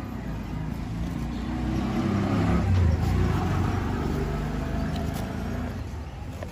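A motor vehicle passing on the street, its engine rumble swelling to a peak about three seconds in and then fading away.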